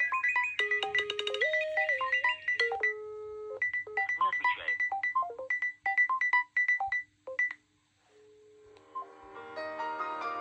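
Mobile phone ringtone: a quick electronic melody of short, repeated beeping notes over a lower held line, breaking off about three-quarters of the way through. Near the end a different tune with held piano-like notes begins.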